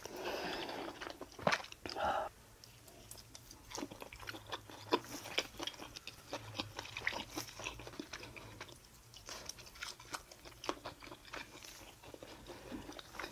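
Close-miked chewing of crunchy food: irregular wet crunches and clicks, densest in the first couple of seconds and then coming in scattered bursts.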